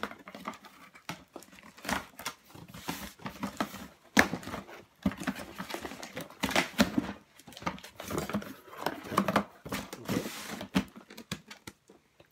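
Cardboard boxes being cut and pried open from the bottom: an irregular run of scraping, tearing and rustling of cardboard and packing tape, with small knocks.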